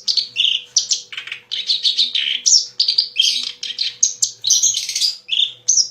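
Kerak basi (reed warbler) singing a fast, continuous song of varied chattering notes.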